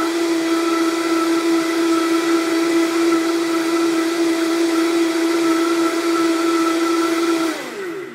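Vitamix blender motor running loud and steady at high speed, blending a fruit smoothie. About seven and a half seconds in it is switched off and the motor winds down, its pitch falling away.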